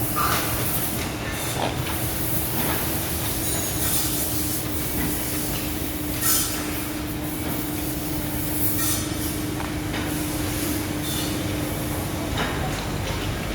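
Machinery running steadily with a low rumble and a constant hum that stops near the end, broken by occasional clanks and hisses.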